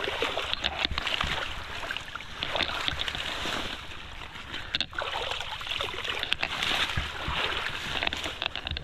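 Rushing water of a strong current, a steady rush that swells and eases every second or two, with scattered small clicks and knocks.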